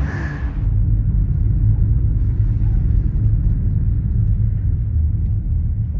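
A loud, steady low rumble with almost nothing higher above it, of the kind made by a moving vehicle or by wind buffeting the microphone.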